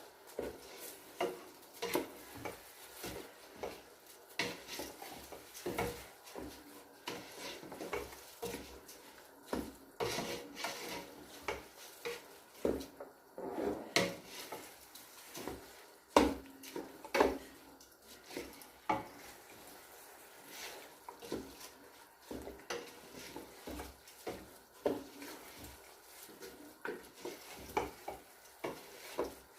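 A spoon stirring in a cooking pot, with irregular knocks and scrapes against the pot, a few each second.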